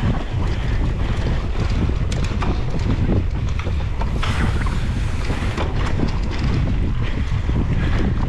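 Wind buffeting the microphone of an action camera on a mountain bike being ridden fast over bumpy grass and sand, with short clicks and knocks from the bike over the ground. A brighter hiss rises about four seconds in and lasts over a second.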